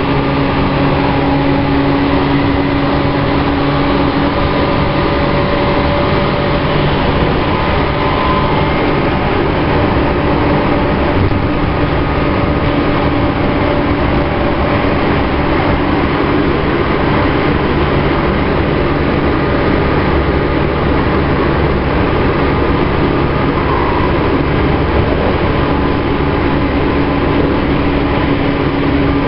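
Tokyu 5050 series electric commuter train running between stations, heard on board: a steady rumble of wheels and running gear under a low hum from its VVVF-inverter traction equipment. One steady hum tone fades out a few seconds in and comes back near the end.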